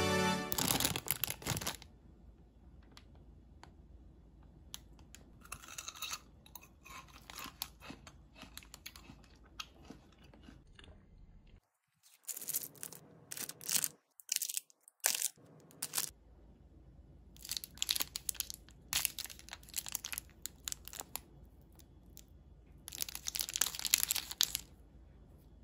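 Candy packaging being handled: foil and plastic wrappers crinkling and tearing in several short bouts, with small clicks in between.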